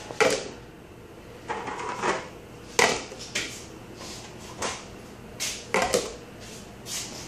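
White plastic lids being set onto plastic honey pails by hand: a series of about ten short plastic knocks and clatters, irregularly spaced.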